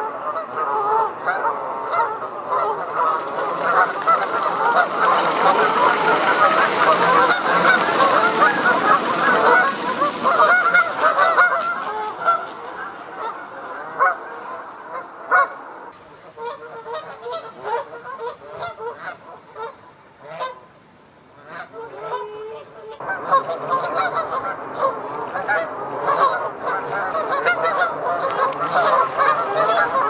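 A large flock of Canada geese honking, a dense overlapping chorus that thins to scattered honks for several seconds past the middle and swells back to a full chorus for the last few seconds.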